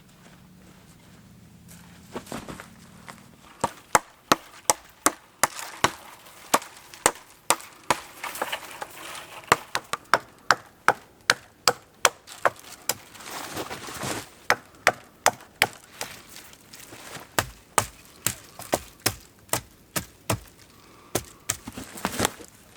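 Wood being chopped with a series of sharp strokes, about two a second, broken by a few short pauses.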